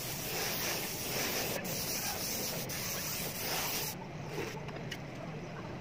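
Airbrush hissing steadily as it sprays paint, stopping about four seconds in, followed by two brief hisses. A steady low background hum runs underneath.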